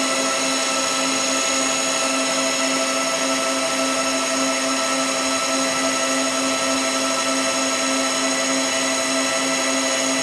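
A machine running steadily: an even whirring noise with several constant whining tones on top, unchanged throughout.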